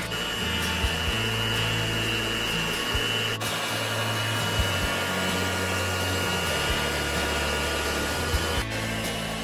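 Electric hand mixer with a whisk attachment running steadily, whipping cream in a stainless steel bowl: a steady motor whirr with a thin high whine. The whirr breaks off briefly twice, about a third of the way in and near the end.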